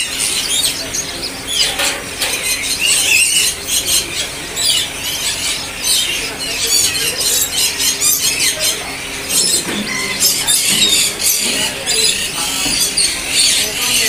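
Many caged birds in a bird market chirping and squealing together: a dense, unbroken din of high, overlapping calls.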